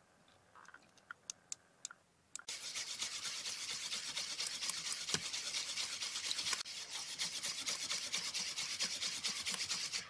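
A silicone whisk beating a thin liquid batter in a paper bowl. From about two and a half seconds in it gives fast, steady rubbing and swishing strokes, with the wires scraping the bowl.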